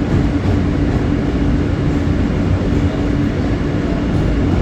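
R160 subway train running on its rails, a steady loud rumble of wheels and car with a constant low hum over it.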